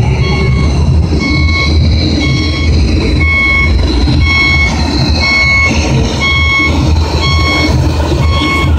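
Reversing alarm of an RC model work vehicle beeping steadily, a little more than once a second, over a steady low hum.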